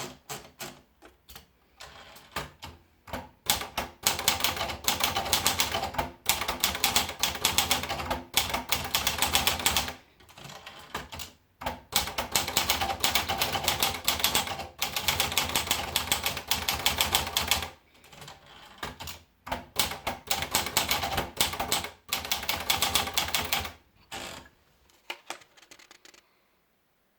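Olivetti Valentine manual portable typewriter being typed on: rapid key strikes in long runs of several seconds, broken by short pauses and a few slower, lighter clicks, stopping near the end.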